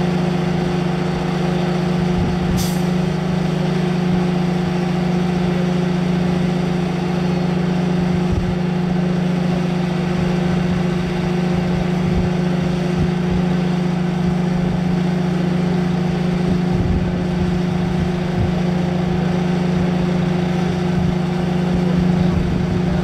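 Fuel tanker truck running with a steady, unchanging drone while it refuels an aircraft. A brief hiss about two and a half seconds in.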